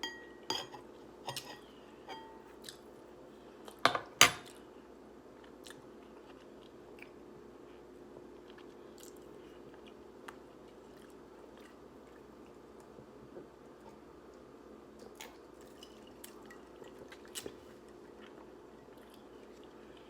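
Close-up ASMR eating of instant ramen noodles: chewing and mouth sounds with sharp clicks of utensils against the bowl, the two loudest about four seconds in, then sparser, fainter clicks over a low steady hum.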